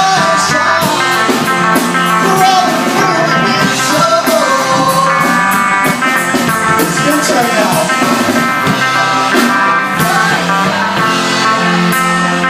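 Rock music led by guitar, with a gliding melody line over steady chords.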